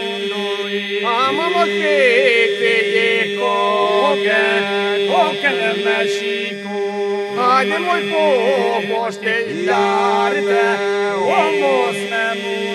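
Albanian folk song sung by male voices: ornamented, wavering melodic lines in phrases over a steady held drone.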